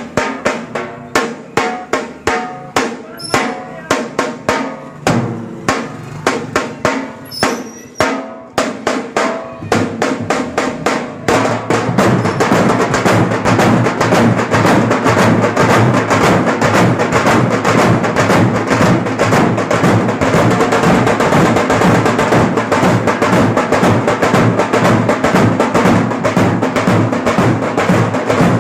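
A dhol pathak drum troupe playing large steel-shelled barrel dhols together with smaller stick-played drums. For about the first ten seconds they beat out a measured rhythm of separate strokes, then about eleven seconds in they break into a dense, fast, continuous rhythm that keeps going.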